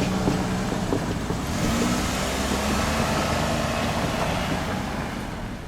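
Road traffic passing, a steady rush of tyre and engine noise that eases off near the end.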